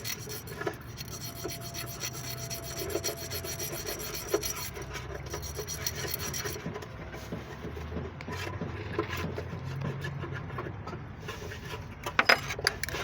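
Steady rasping and rubbing from hand work on a part, with a few sharp clicks about twelve seconds in.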